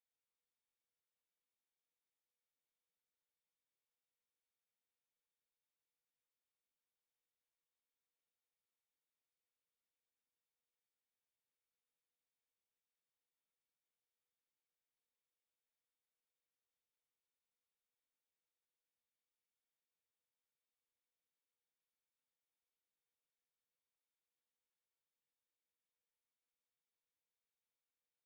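Pure 7777 Hz sine test tone, a single loud, high-pitched steady tone that never changes.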